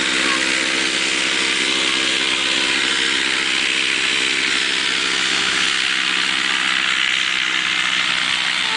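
Paramotor trike's engine and caged propeller running at takeoff power: a steady, unchanging engine note with a strong hiss above it. A holed exhaust pipe leaves it short of power.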